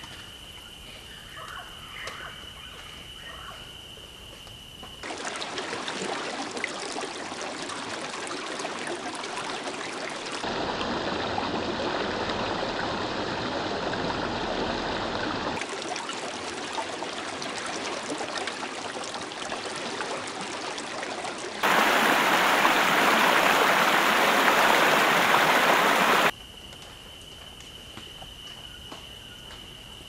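Running water, in sections that change abruptly in loudness every five seconds or so, loudest for a few seconds past the middle. The quieter stretches at the start and end carry a steady high tone and a few faint chirps.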